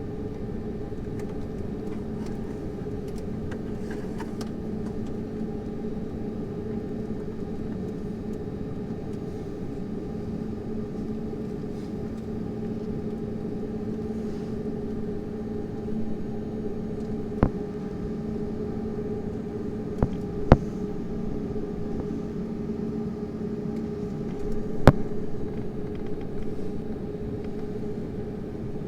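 Steady cabin hum of an Airbus A320 with its engines running, heard from inside the cabin, at an even level without rising. A few sharp knocks sound in the second half, the loudest about two-thirds of the way through.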